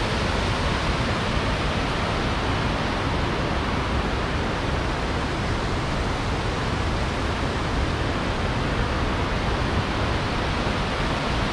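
Steady rushing of a waterfall pouring over rock ledges, an even, unbroken wash of water noise.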